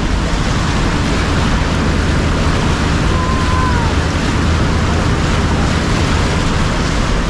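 Steady, loud rush and splash of river water against the wheels and body of a four-wheel drive and its trailer as they drive through water flowing over a submerged concrete causeway, with the engine running low underneath.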